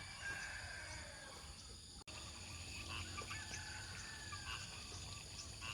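Rural outdoor ambience: a steady high insect trilling with scattered bird chirps over a low background rumble, briefly cut off for an instant about two seconds in.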